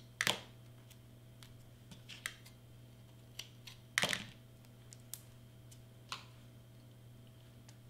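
Scattered light clicks and taps from hands handling double-sided tape and cardstock on a cutting mat, the sharpest about four seconds in, over a faint steady hum.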